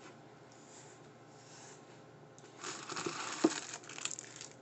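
Crinkling of the wrapper around a sushi burrito half as it is picked up and handled. It starts about halfway in and has one sharp tap in the middle of it.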